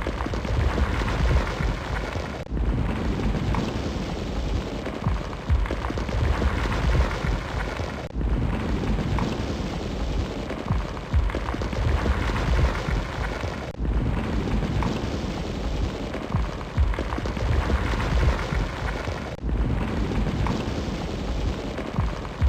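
A fully involved car fire burning: a dense, steady rumble of flames with scattered crackles and pops. The sound drops out briefly about every five and a half seconds.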